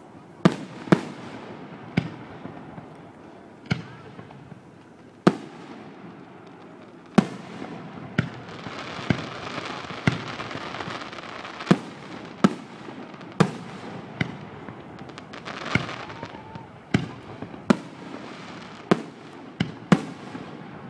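Fireworks display: aerial shells bursting in a string of sharp bangs, roughly one a second at uneven spacing. A crackling hiss swells between bursts about halfway through and again later.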